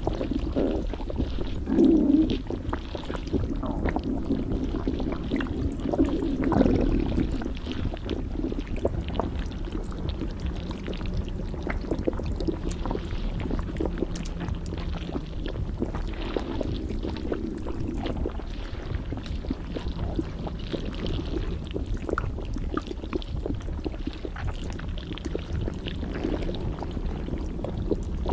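Stomach gurgling and churning, muffled as if heard from inside the stomach: a steady low rumble with irregular watery gurgles, the loudest about two seconds and about six and a half seconds in.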